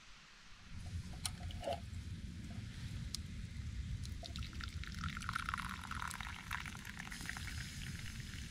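Liquid pouring and splashing over a low rumble, with a few sharp clicks between about one and three seconds in.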